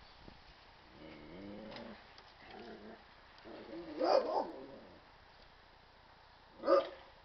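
Dogs vocalising: low growly whines from about one to three seconds in, a loud bark around four seconds, and one more short, sharp bark near the end.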